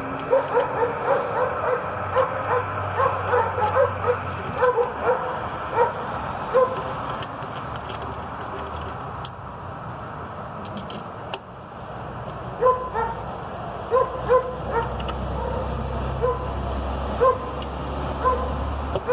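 A dog barking in short, repeated yips: quick strings of them for the first several seconds, then more spaced out. A steady low hum runs underneath.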